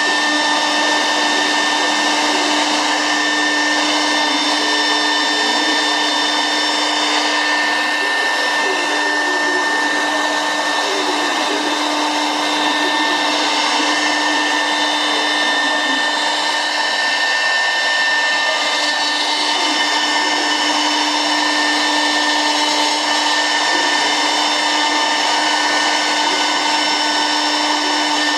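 CNC router spindle running steadily while milling a solid pine door panel: a constant whine with several fixed tones over the hiss of the cut.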